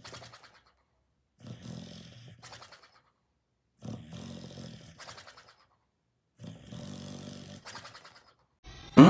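Sleeping dog snoring: three long, low snores about every two and a half seconds, each trailing off into a fluttering rattle. A short, loud rising sound cuts in right at the end.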